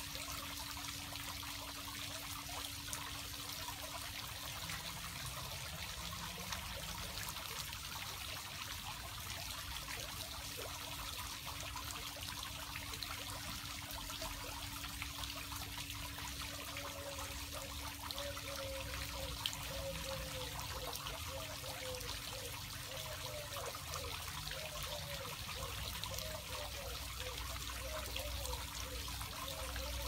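Bubbling water fountain: a steady trickling and splashing of falling water, with a faint steady low hum underneath.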